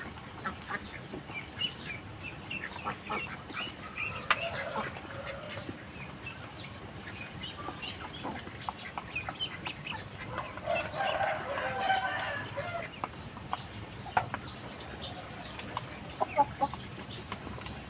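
Chickens clucking and calling in a mixed poultry pen, many short scattered calls, with a louder bout of calling about ten seconds in.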